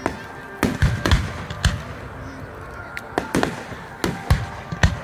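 Aerial fireworks shells bursting: a quick, irregular string of about a dozen sharp bangs, some ringing out briefly after the blast.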